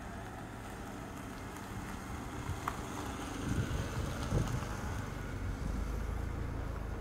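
Outdoor ambience with wind buffeting the microphone as a low rumble, gusting harder about halfway through; it cuts in suddenly from silence.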